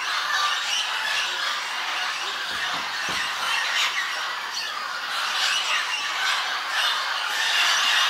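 A large mixed flock of parrots feeding on a clay bank, many birds squawking and chattering at once in a dense, unbroken din of overlapping calls.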